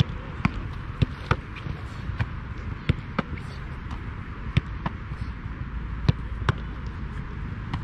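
A football struck back and forth by goalkeepers' feet and gloved hands: a dozen or so sharp, irregularly spaced thuds, roughly one to two a second.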